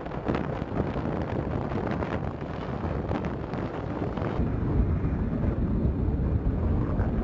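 Wind buffeting the microphone over a steady low rumble, with a few faint distant thuds in the first seconds. About four seconds in, the sound turns deeper and duller and a little louder.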